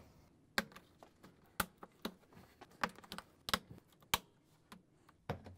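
Sharp plastic clicks and snaps, about eight of them spaced irregularly half a second to a second apart, as the locking tabs of a top-load washer's plastic tub cover are pressed down and popped loose one by one.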